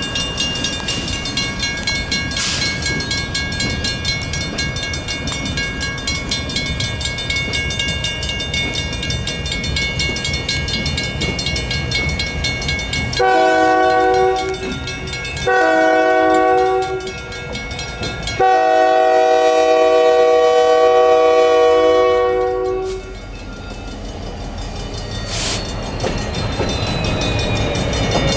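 Federal Signal mechanical railroad-crossing bell ringing continuously, with a train's rumble under it. About thirteen seconds in, a locomotive horn sounds three blasts, the last held for about four seconds and the loudest sound here; then the train's rumble grows as it nears the crossing.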